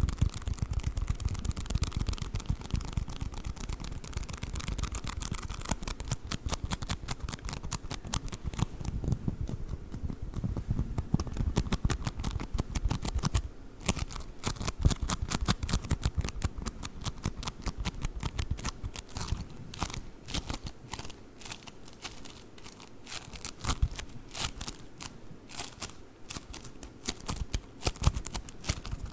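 Play foam, the bead-filled modelling foam, being squeezed and kneaded, giving a dense run of fast tiny crackles and pops.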